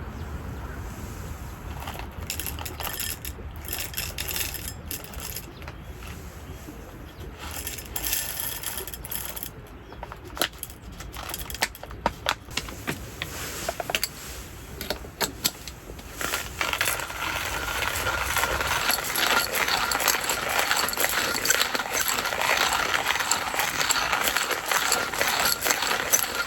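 Light clicks and clinks of small hard objects being handled, repeated at irregular intervals. About two-thirds of the way in, a steady hiss rises and carries on under them.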